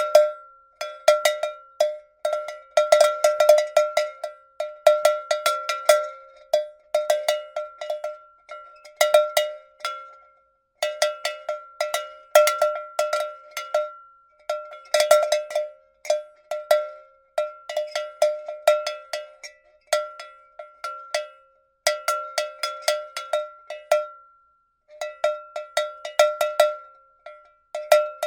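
Metal cow bell clanking in irregular clusters of quick strikes, the rattle of a swinging bell, each strike ringing briefly, with short pauses between clusters.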